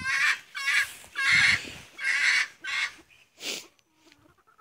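Poultry in the run calling: a series of about six short, harsh, raspy squawks.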